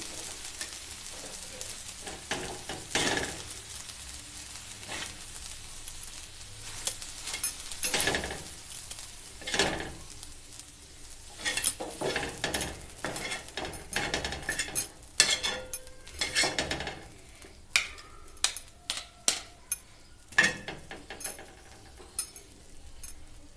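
Metal spatula and spoon scraping and clinking on a large flat tawa griddle as cooked tomato chaat is scooped off it. The strokes are irregular, sparse at first and coming quickly one after another in the second half.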